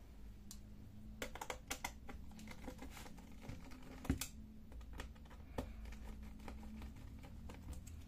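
Light, irregular clicks and ticks of a small screwdriver working the screws out of a laptop's aluminium bottom cover, with a sharper knock about four seconds in.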